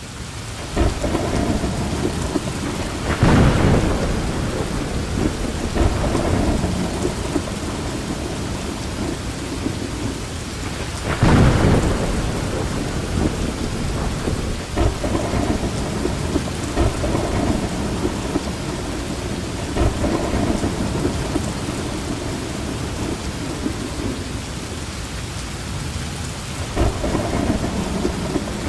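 Heavy rain falling steadily, with a deep rumble underneath that swells louder about 3 seconds and 11 seconds in.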